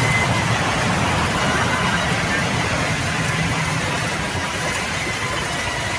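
Sawmill saw machinery running: a loud, steady mechanical din with a faint high whine, easing off slightly toward the end.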